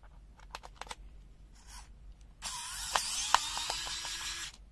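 Screws being undone from a small plastic multimeter case during a teardown: a few light clicks, then about two seconds of continuous ratcheting, grinding mechanical noise with clicks in it, stopping suddenly near the end.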